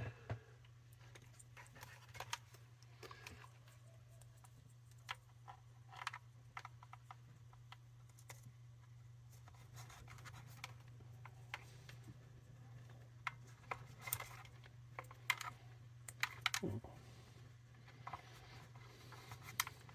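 Faint, scattered clicks and scratches of hands fitting wire leads and crocodile clips, over a steady low hum.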